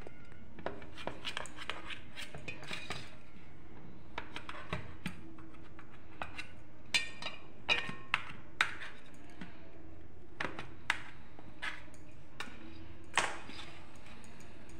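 Table knife cutting through soft steamed dhokla, its blade ticking and scraping against the metal tray beneath. It makes scattered light clicks, with a few sharper clinks about halfway through and one near the end.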